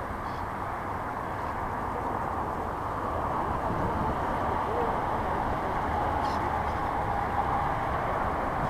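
Wind buffeting the deck-mounted microphone and water rushing along the hull of a model sailing yacht under sail, a steady rushing noise that grows slightly louder a few seconds in.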